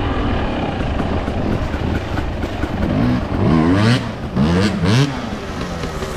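2022 Husqvarna TE250i fuel-injected two-stroke dirt bike engine running under throttle, revving up sharply twice: about three seconds in and again about four and a half seconds in.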